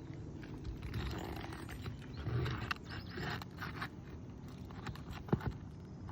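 Metal nail-removal tool scraping and prying under asphalt roof shingles to work the nails loose, with scattered clicks and a sharp knock about five seconds in.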